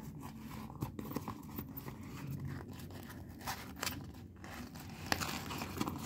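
Small white cardboard box being opened by hand: irregular scraping of the flaps and packing tape being peeled and torn off.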